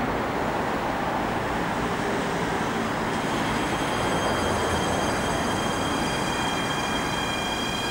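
Mitsubishi-Rotem metro electric multiple unit approaching the platform with a steady rumble. About three seconds in, a high whine of several steady tones joins and grows stronger.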